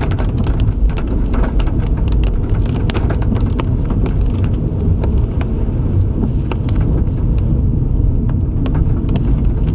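Steady low road and tyre rumble heard from inside a moving car's cabin on a wet road, with raindrops ticking irregularly on the windshield and roof. The ticks are densest in the first half.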